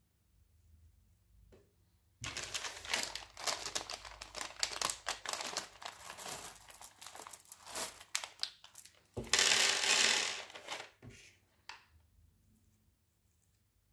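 Plastic M&M's candy bag crinkling and crackling as it is handled, then a louder burst of rustling lasting a second or two about nine seconds in, as the bag is opened and emptied.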